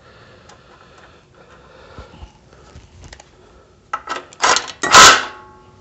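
Light clicks and scrapes as bolts are threaded by hand into a generator's recoil starter cover. About four seconds in, a cordless power driver runs in a few short bursts, the last the loudest, tightening the bolts, and its motor whine trails off at the end.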